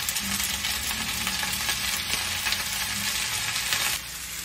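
Chicken and vegetables frying in olive oil in a large frying pan: a steady sizzle with faint clinks and scrapes of a utensil pushing vegetables in from a bowl. The sizzle drops away suddenly near the end.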